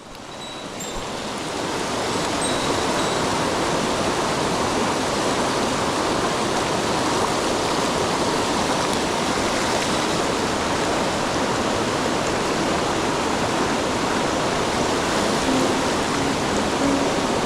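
Mountain stream rushing steadily, a dense even roar of flowing water that fades up over the first couple of seconds.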